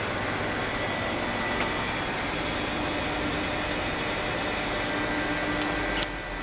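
Milling machine running with a steady motor hum and a few held whining tones; about six seconds in a click sounds and the running note changes to a lower hum.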